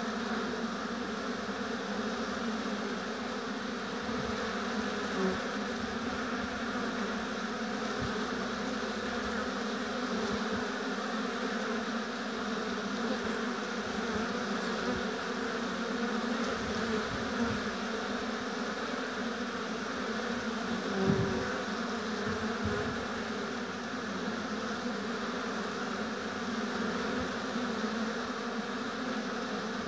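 Many honeybees buzzing at a hive: a dense, steady hum that swells briefly louder twice, about a sixth of the way in and again about two-thirds through.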